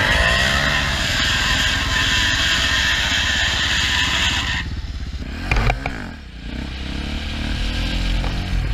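Single-cylinder KTM supermoto engine heard from the rider's helmet, under a loud hiss that stops about halfway through. A quick blip of the throttle follows, then the engine pulls with its pitch slowly rising as the bike accelerates.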